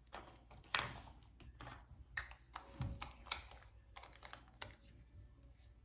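Small makeup items such as a lip gloss tube being handled: light, irregular clicks and taps, several a second at times.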